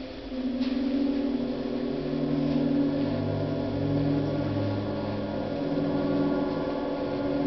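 Middle school concert band playing slow held chords that swell in, with lower notes joining about a second and a half in and again about three seconds in.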